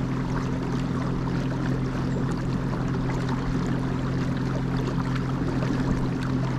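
Motor on a kayak under way, humming steadily at a fixed pitch, with water rushing along the hull.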